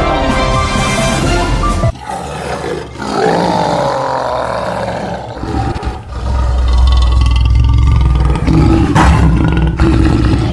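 Loud creature roars over background music, with a heavy low rumble from about halfway through.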